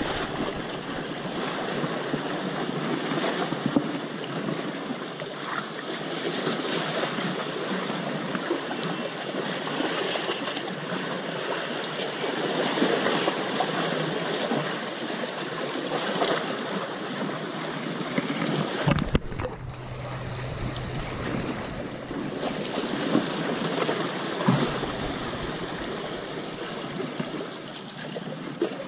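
Small sea waves washing and splashing against shoreline rocks, a continuous uneven wash, with gusts of wind on the microphone.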